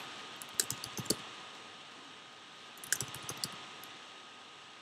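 Keystrokes on a computer keyboard in two short bursts of typing, a few clicks each, over a steady faint hiss.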